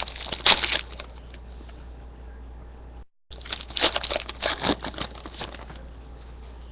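Foil trading-card pack wrappers crinkling and crackling as packs are torn open and handled, in two bouts: one in the first second and a longer one from about three and a half seconds in. The sound cuts out completely for a moment just after three seconds.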